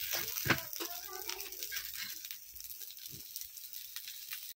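Besan-coated brinjal slices sizzling as they fry on a tawa, with a metal spatula scraping and knocking against the pan; one sharp clink about half a second in. The sizzle thins toward the end.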